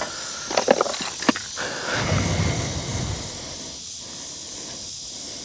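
Steady high chirring of crickets and other insects, with a few sharp clicks in the first second and a half and a short low rustling rumble about two seconds in, from handling the catfish and pliers.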